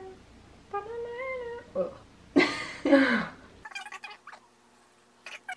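Wordless vocal calls with sliding pitch: a few short rising-and-falling notes, then a louder, breathier one falling in pitch about two and a half seconds in. The sound then drops away abruptly to near quiet with a few faint taps.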